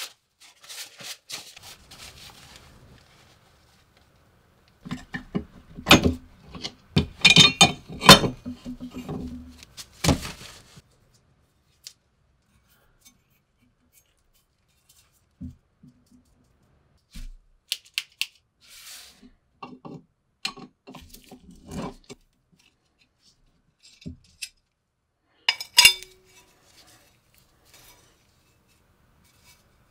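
Metal parts of a vintage Leslie toilet paper holder being taken apart and handled on a wooden workbench, with clinks, clicks and knocks of metal on metal and on wood. The clinks come thickest about five to ten seconds in, then scattered, with a sharp clink near the end.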